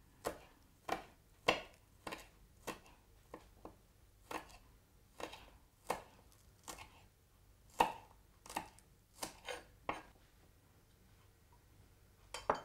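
Kitchen knife slicing a spring onion on a wooden cutting board: a run of sharp, separate cuts, about two a second, that stops about ten seconds in.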